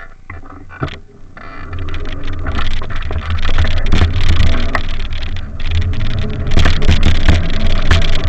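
Wind buffeting the camera's microphone as the bicycle gets moving, a rushing rumble that builds about a second and a half in and stays loud, with scattered knocks of handling.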